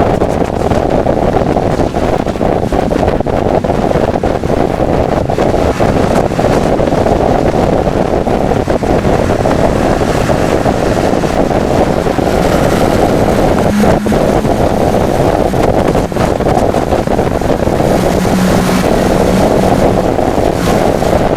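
Hurricane-force wind buffeting the camcorder microphone: a loud, steady, low rumbling noise with no break.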